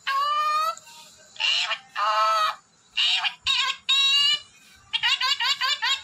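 Parakeet calls: a string of loud, pitched squawks that rise in pitch, each well under a second long. About five seconds in they give way to a rapid run of short rising chirps, about seven a second.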